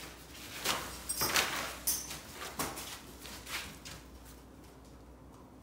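A handful of short, irregularly spaced scuffs and rustles over about three seconds, then quiet room tone.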